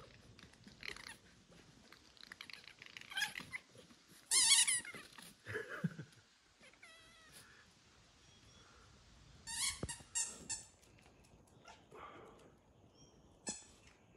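An animal calling: several short, high calls with wavering pitch, the loudest about four and a half seconds in, then a quick cluster of sharp calls around ten seconds and one more near the end.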